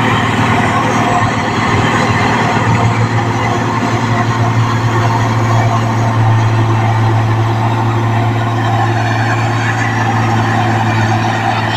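New Holland combine harvester running steadily: a constant low engine hum under a dense wash of mechanical noise.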